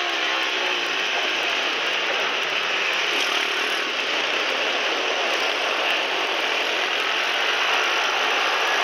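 Pit bike engine running hard at fairly steady revs through a corner, heard from a camera mounted on the bike and covered by a dense rushing noise.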